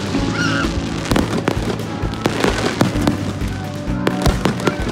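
Aerial fireworks bursting: a quick series of sharp bangs and crackles, heard over background music with steady held notes.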